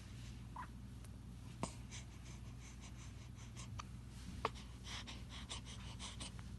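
A baby breathing softly between cries, with two faint, sharp hiccups about three seconds apart and some light scratchy clicks.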